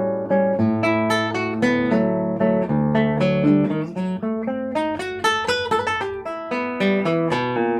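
Acoustic guitar played fingerstyle: a choro piece with a moving bass line under a melody of quick plucked notes.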